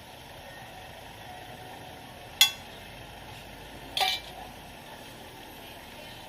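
Banana pancake frying on a street vendor's griddle with a steady sizzle, broken by two sharp ringing metal clinks about a second and a half apart.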